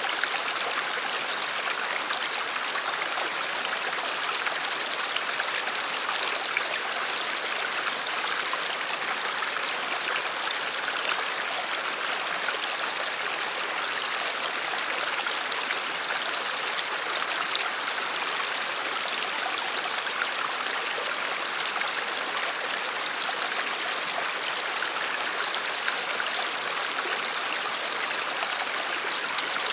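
Shallow stream flowing steadily, a constant rush of water.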